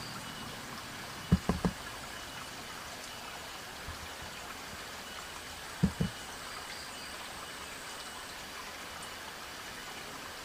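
Steady outdoor hiss like trickling water, with faint steady high tones. Short low thumps stand out against it: three close together about a second and a half in, and two more about six seconds in.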